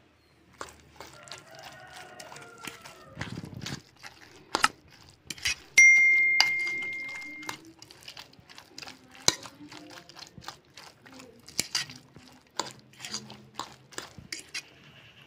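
Spoon stirring wet onion-and-egg batter in a plastic bowl, with repeated clicks and knocks against the bowl. About six seconds in, a single clear metallic ding rings out and fades over a second and a half; this is the loudest sound.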